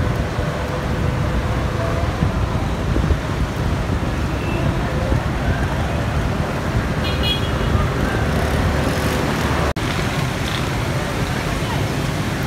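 Steady road-traffic noise mixed with wind buffeting the microphone, with a deep rumble underneath and a brief high-pitched tone about seven seconds in.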